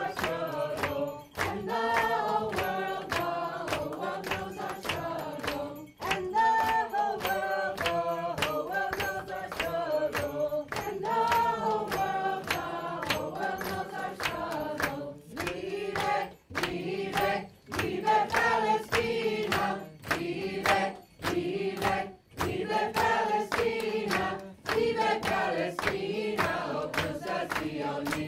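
A group of voices singing a chant-like song together, accompanied by steady hand clapping at about two claps a second.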